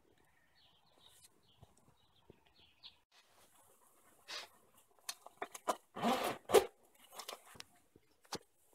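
Aerosol can of wasp spray being shaken, its mixing ball rattling in a run of short clicks, starting about four seconds in. The loudest clatter comes a little after six seconds.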